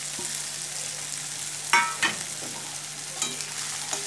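Chopped onion, garlic, ginger and green chillies sizzling in hot mustard oil in a metal kadai. A metal spatula stirs them, clinking and scraping against the pan a few times, loudest near the middle.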